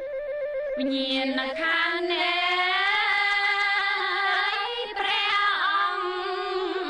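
Khmer mourning song: a singer draws out a slow, melismatic phrase of long, wavering held notes over sustained instrumental accompaniment.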